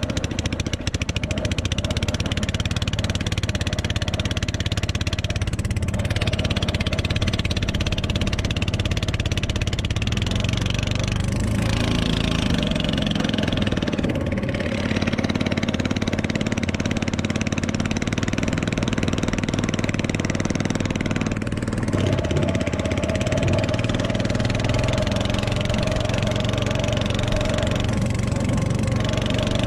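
Longtail (ketinting) boat engine running under way, a steady engine note that shifts twice, about eleven and twenty-two seconds in.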